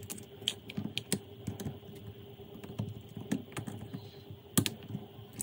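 Scattered small clicks and taps of fingers handling an opened Vivo Y91 phone's plastic parts and circuit board, with a few sharper clicks, over a faint steady hum.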